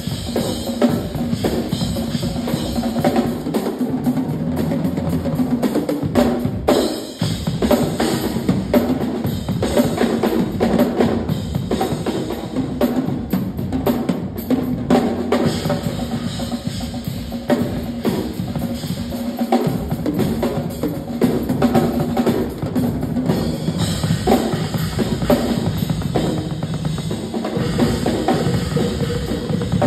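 Two drum kits played together in a duet: a dense, continuous run of bass drum, snare and tom hits with cymbals, dropping briefly about seven seconds in.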